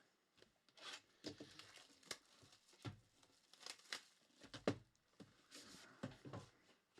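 Faint crinkling and rustling of card-box packaging being handled, with scattered light clicks and taps.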